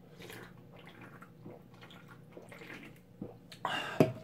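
Someone gulping a canned soft drink, faint swallowing sounds, then the can set down with a sharp clack near the end.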